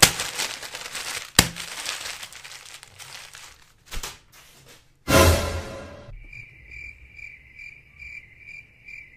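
Newspaper pages rustling and crinkling with a sharp click, fading out over the first three seconds. About five seconds in a short noisy burst follows, then a cricket chirping sound effect, about three chirps a second, used as the gag for an awkward silence.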